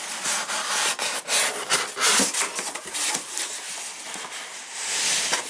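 Cardboard board-game boxes being handled: repeated scraping, rubbing and light knocks as the boxes slide against each other.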